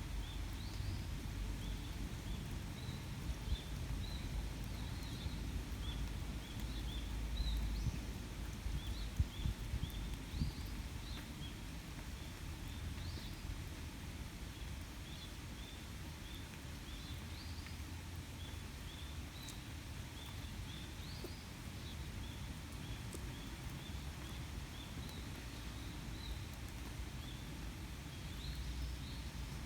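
A small bird giving short, high chirps again and again over a steady low rumble, with a few sharp clicks in the first half.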